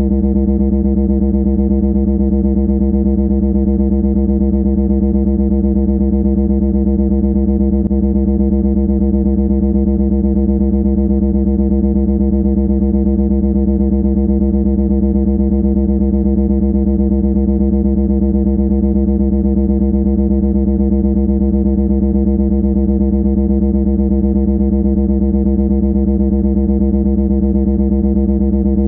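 A loud, continuous buzzing drone held at one low pitch, with no change at all in pitch or level.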